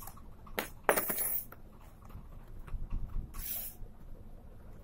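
A blade cutting the seal on a cardboard box: a sharp click, a short scraping cut about a second in, and a brief hissy slice a little past three seconds.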